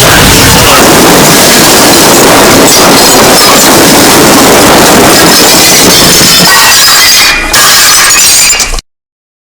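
A loud, distorted pile-up of cartoon sound effects with glass breaking and clinking, at full level throughout, that cuts off abruptly into silence near the end.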